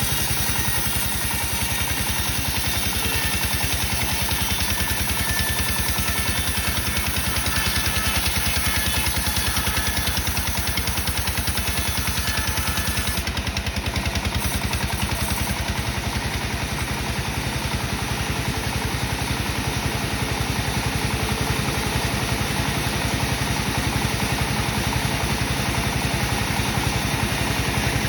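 Sawmill saw machine running steadily with a regular engine beat while making the first slab cut off a teak log.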